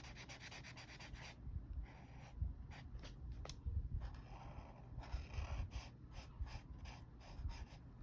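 A pen colouring in on paper, with repeated quick scratchy back-and-forth strokes.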